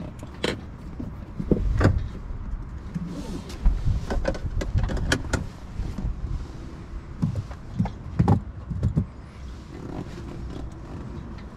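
Scattered clicks, knocks and dull thumps of handling inside a stationary car's cabin, with no steady engine note.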